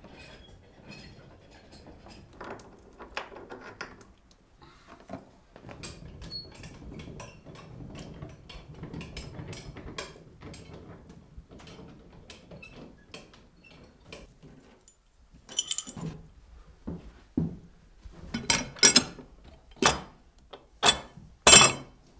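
Irregular mechanical clicking and rattling, then about five loud, sharp knocks in the last four seconds.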